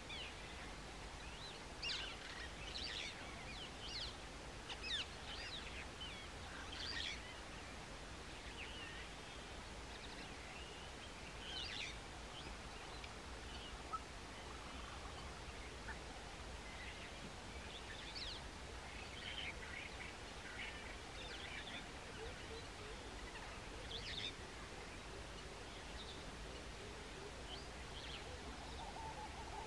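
Birds chirping with scattered short, high calls in small clusters, over a steady low rumble. A low hooting call begins near the end.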